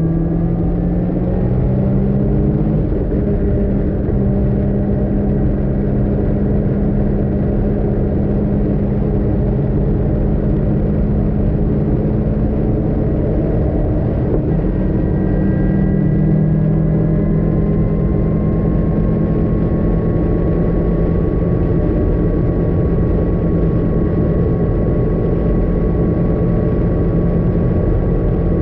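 Caterham R500 engine heard from the open cockpit, running hard under acceleration at speed. Its note steps about two and a half seconds in and again about halfway through. Wind noise rushes over the cockpit throughout.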